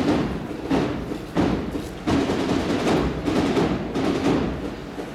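Processional band playing a slow march, its drums striking a steady beat about every three quarters of a second, each hit ringing off the street walls.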